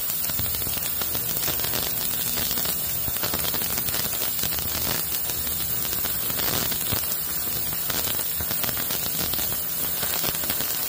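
Ultrasonic parts cleaner running: a steady hiss with a low hum underneath.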